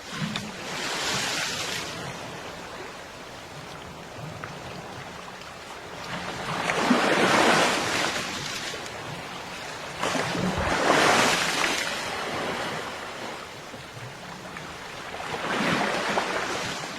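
Ocean waves breaking on a beach: a steady hiss of surf that swells four times as waves break and wash in, the middle two the loudest.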